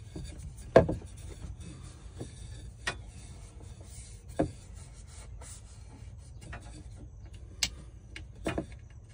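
Scattered knocks and taps as the baggage door's metal frame and the wooden mounting strip are handled and pressed into place, about five separate knocks with the loudest about a second in, over a low steady rumble.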